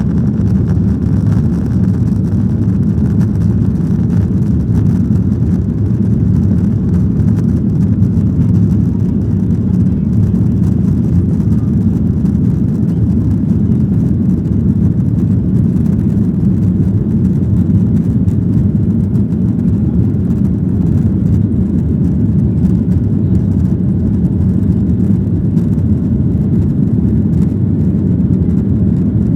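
Steady low rumble of a Boeing 737-900's CFM56-7B jet engines and rushing air, heard inside the passenger cabin.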